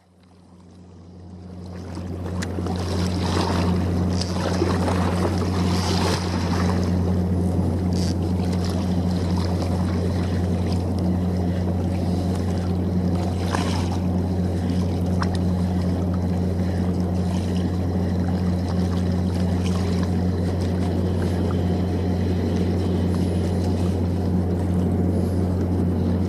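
Steady low hum of a large ship's machinery running across the harbour, under an even hiss. It fades in over the first two seconds.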